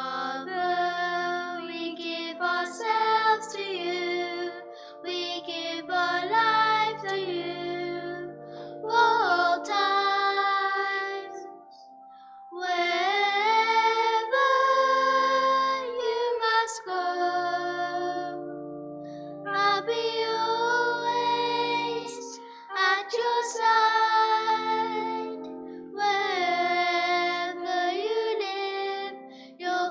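A solo singer sings the responsorial psalm in phrases of held notes over a sustained instrumental accompaniment, with short pauses between verses.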